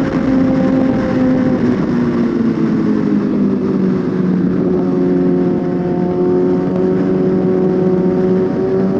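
Suzuki GSX-R1000 inline-four engine running on the move, over a steady rush of wind noise. The engine note falls for the first few seconds as the bike slows, then about five seconds in it picks up again and climbs slowly as the throttle comes back on.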